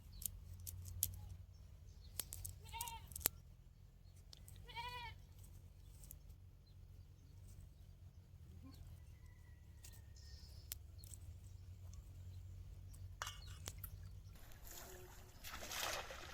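Two short, pitched animal calls, bleat-like, a couple of seconds apart, among scattered light clicks and knocks; a burst of rustling noise comes near the end.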